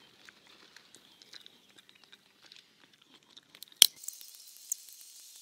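Hazelnut shells being cracked open by hand: scattered small clicks and crunches of shell, with one sharp loud crack just before four seconds in and a smaller one about a second later.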